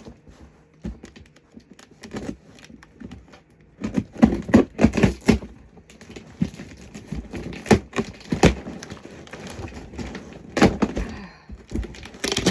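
Cardboard box being opened by hand: irregular cracks, knocks and thumps of the cardboard, with a cluster of louder ones in the middle.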